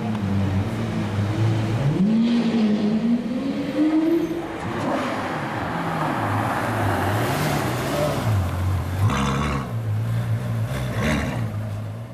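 Supercar V12 engines: a Lamborghini Aventador revving up, its pitch rising for a couple of seconds, then a Ferrari F12berlinetta pulling along in traffic with two short sharp throttle blips near the end.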